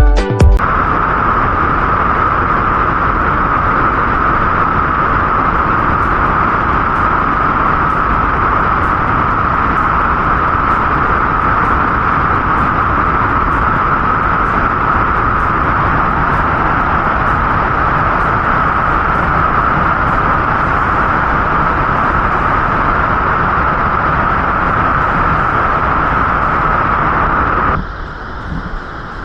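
Steady roar of water pouring over Lumangwe Falls on the Kalungwishi River, a loud, even rush; near the end it drops suddenly to a quieter rush.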